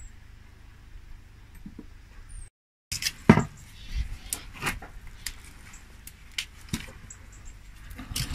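A faint steady low hum with two brief, faint high chirps, then a short dropout to silence, followed by a series of irregular clicks and knocks with low thuds.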